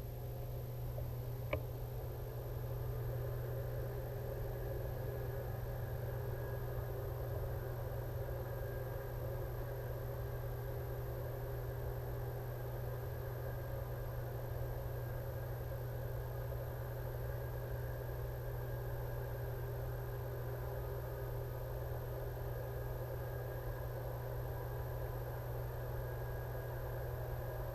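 Steady low hum and hiss of background noise, with a thin high whine and a single sharp click about a second and a half in.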